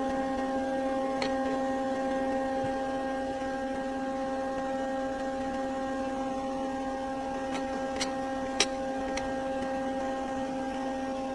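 Electric infrared stove humming steadily with a pitched electrical buzz and its overtones while it heats. A few small, sharp clicks fall in the second half.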